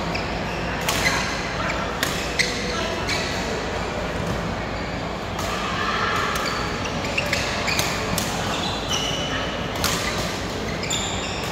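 Badminton play in a large, echoing hall: sharp cracks of rackets hitting a shuttlecock at irregular intervals, with brief shoe squeaks on the court floor and background voices of players.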